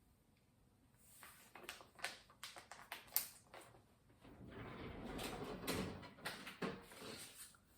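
Household items being handled: a run of sharp clicks and knocks, with a stretch of rustling in the middle, then a few more knocks.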